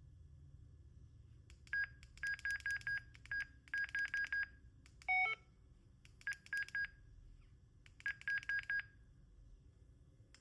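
Radtel RT-860G handheld radio beeping as it is switched on and its keys are pressed: several runs of short, quick, same-pitched beeps, with one differently pitched chirp about five seconds in.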